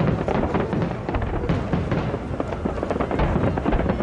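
Aerial fireworks going off in quick succession: a dense, unbroken run of bangs and crackles with no gaps between bursts.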